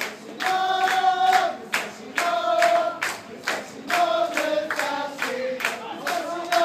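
Football supporters chanting a song in unison, in held notes about a second long, over a steady beat of claps.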